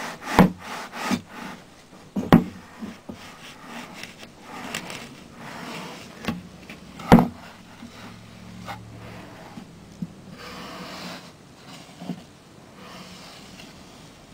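Objects in a reptile vivarium being handled and set into play sand: several sharp knocks, the loudest about seven seconds in, with soft scraping and rubbing between them.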